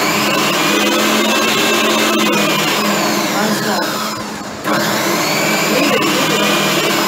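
Electric food processor running, mixing butter and egg into cookie batter; its motor runs steadily, stops for about half a second a little past the middle, then starts again.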